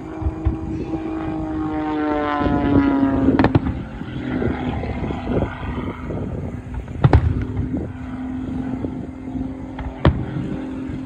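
Propeller airshow plane's engine droning overhead, its pitch sinking slightly as it passes during the first few seconds, then holding steady. Three sharp bangs of aerial firework shells come a few seconds apart, the loudest near the middle.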